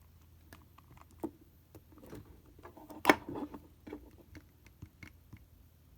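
Scattered small clicks and taps from handling a digital multimeter and its test leads while its buttons are pressed, with one sharp click about three seconds in.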